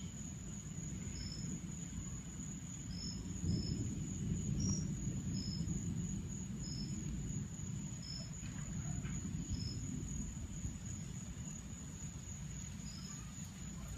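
Insects chirping in short calls about once a second over a steady high-pitched insect drone, with a steady low rumble underneath that swells a little about three and a half seconds in.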